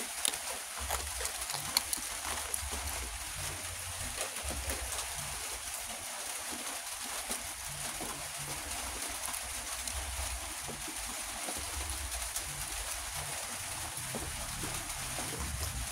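A few sharp clicks and crinkles of a clear plastic blister pack being handled near the start, over a steady background hiss. Pigeons coo low and repeatedly throughout.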